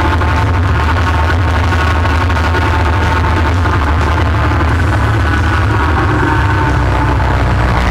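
All-terrain vehicle engine running steadily on the move, a constant low drone with a steady higher whine over it.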